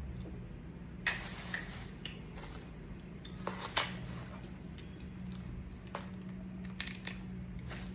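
Mud crab being eaten: scattered sharp clicks and cracks as the shell is broken and handled, over a steady low hum.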